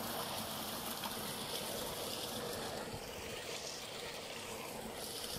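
Storm rain and running water: a steady, even hiss that holds through.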